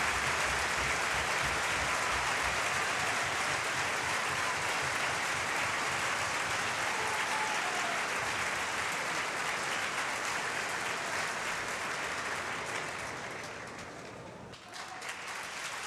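Large opera-house audience applauding steadily at a curtain call, the clapping thinning out near the end.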